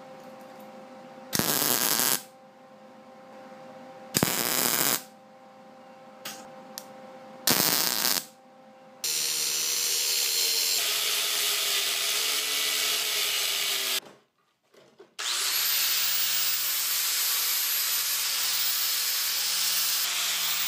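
MIG welder laying three short tack welds, each about a second long, to join two steel plates around a bearing. Then an angle grinder grinds down the welds, stops briefly, and spins up again to grind steadily.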